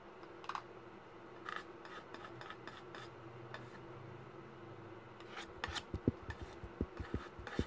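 Faint rubbing and scraping strokes, then from about five and a half seconds in a run of knocks and bumps as the filming phone is handled and moved.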